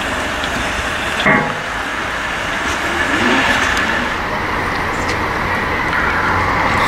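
Steady hiss and rumble around a narrow-gauge steam train standing at a station platform, with a single short knock about a second in.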